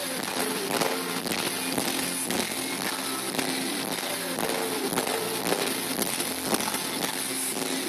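Live pop-rock band playing, with guitars and a steady drum beat, heard through an overloaded phone microphone that makes the music harsh and distorted.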